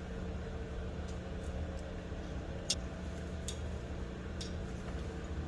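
A few light, separate clicks of metal parts and tools being handled, the sharpest about midway, over a steady low hum.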